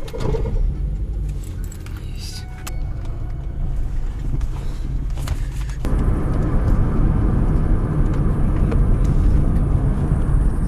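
Car running and driving off, heard from inside the cabin: engine rumble and road noise, with a few clicks early on. About six seconds in the tyre noise turns louder and rougher.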